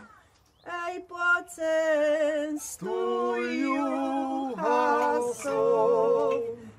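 Men and women singing together unaccompanied in long, held notes with a slight waver. The singing breaks off briefly at the start and comes in again about a second in.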